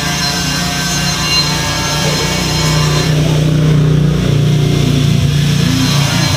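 Engine or motor running steadily with a low hum, growing a little louder about halfway through.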